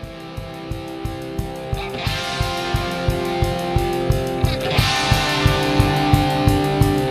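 Background music: a guitar-led track over a steady beat, building and growing louder.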